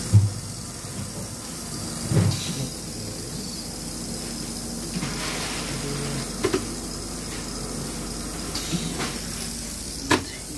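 Steady hiss of steam with a low hum from the plumbing of a Steelco VS6/2 steam sterilizer running its test cycle, with a few short knocks and clicks.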